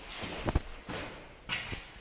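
Footsteps on a debris-strewn concrete floor: a few irregular thuds and scuffs, the loudest about half a second in.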